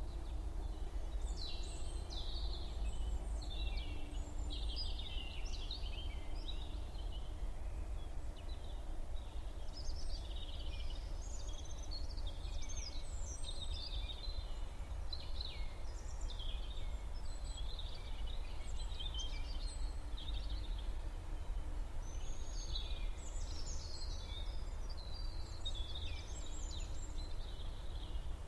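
Many songbirds singing and calling over one another in a morning chorus: a dense, continuous mix of high chirps, twitters and trills, over a steady low rumble.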